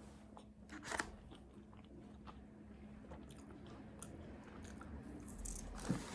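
Someone eating close to the microphone: faint crunching and a few small clicks, the loudest about a second in.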